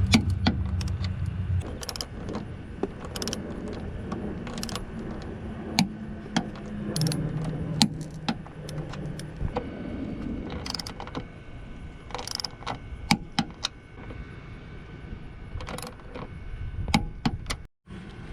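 Socket wrench ratcheting and metal tools clicking and clinking while suspension nuts are tightened, with scattered sharp clicks throughout. A low steady hum is heard at the start and again about halfway through.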